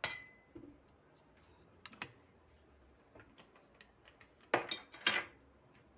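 A metal measuring spoon taps against a stainless steel mixing bowl with a short metallic ring, followed by a few light clicks and two louder knocks near the end as kitchen utensils are handled and set down.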